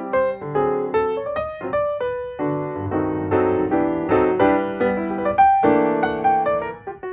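Background piano music: notes and chords struck one after another and left to ring.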